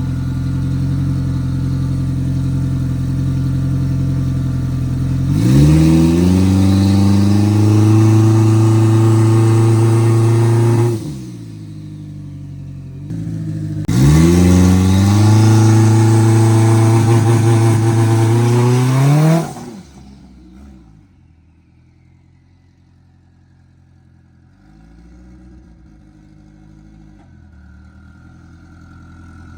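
Turbocharged race car engine on a chassis dyno making two loud runs of about five seconds each, with engine speed climbing before the throttle is let off. It then settles to a quiet idle. Low boost at low RPM and a tight torque converter leave the engine lazy to pull from brake release.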